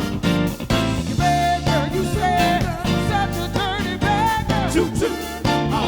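Live soul band playing a Motown-style song: a steady drum beat, guitar and bass under a singing voice with vibrato.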